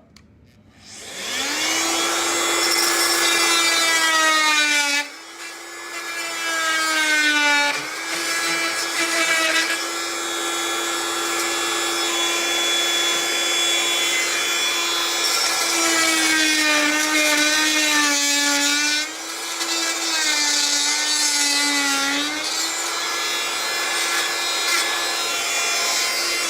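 Harbor Freight oscillating multi-tool running flat out with a loud, steady, high buzz while its blade cuts into the trim. The pitch dips now and then as the blade bogs down under load, then recovers.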